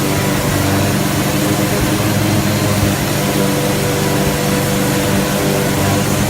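Orbital sander running steadily on painted aluminium trailer skin, over the steady hum of a gas-powered generator.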